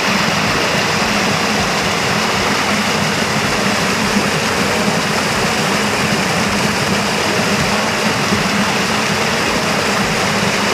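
Small waterfall splashing close by: a loud, steady rush of falling water.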